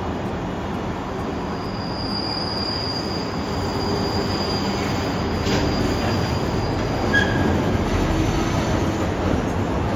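A train running by, its wheels squealing in a thin high tone for a few seconds near the start, over a steady rumble that grows a little louder in the second half.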